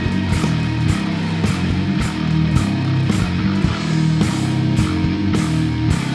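Heavy instrumental rock music played on bass guitar with effects and a drum kit: sustained low bass notes under steady, repeated drum hits.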